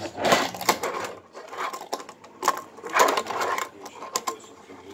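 A fingerboard rolling across a tabletop and ramp, with small wheels rattling in short runs and sharp clacks as the deck and wheels hit the surface, repeated several times.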